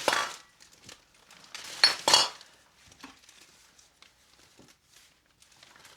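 Empty bottles and cans knocking and clinking together as they are handled and set down, with a clatter at the start and two sharp, ringing knocks about two seconds in, then a few light clicks.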